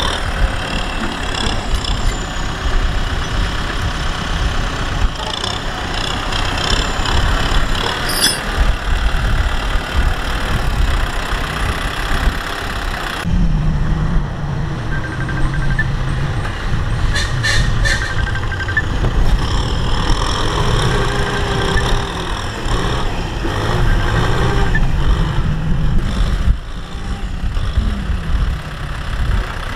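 Diesel farm tractor engines running under load as the tractors work and struggle in wet, sticky mud. About a third of the way in, the sound changes abruptly to a deeper, lower engine note.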